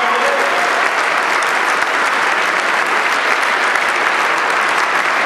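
Audience applauding, a steady, even clapping throughout.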